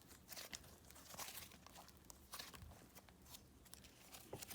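Faint sticky clicks and small crackles of thick slime being squeezed and stretched by hand, a scattering of quick pops.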